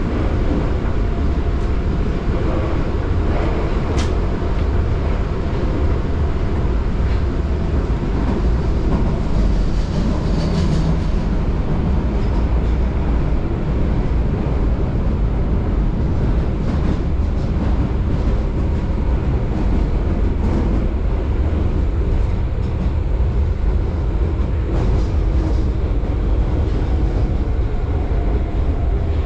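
Subway train running through a tunnel, heard from inside the passenger car: a steady low rumble of wheels and running gear, with a single sharp click about four seconds in.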